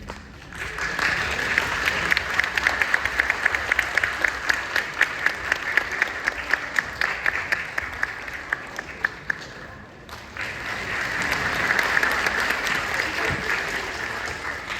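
Audience applauding in a large hall. The clapping starts half a second in, eases off about ten seconds in, then swells again.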